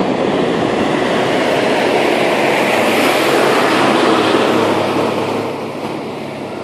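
A loaded lorry passing close by: its engine and tyre noise builds to a peak about three to four seconds in, then fades.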